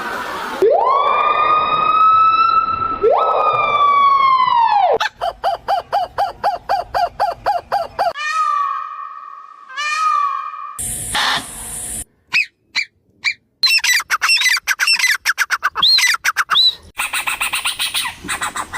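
A string of different animal and bird calls cut one after another. First come two long pitched calls that rise and then sag. Then a fast pulsing run, then a few repeated falling whistles, and finally bursts of short chirps.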